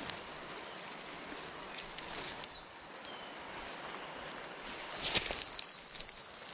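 A small metal bell, a bear bell, rings. One stroke comes about two and a half seconds in, then a quick run of strokes about five seconds in that rings on with a single clear high tone for about two seconds. A short sharp click sounds at the very start.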